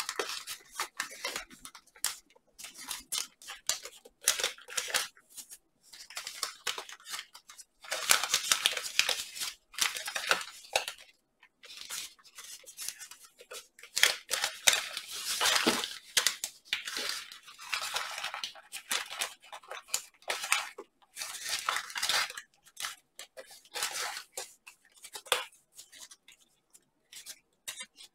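Origami paper rustling and crinkling as hands fold and crease a many-layered paper model, in irregular bursts with brief silent gaps between them.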